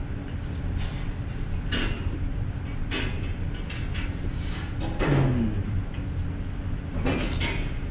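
Table eating sounds: a few light clicks and sips from chopsticks, containers and a cup, over a steady low room hum, with a brief low vocal murmur about five seconds in.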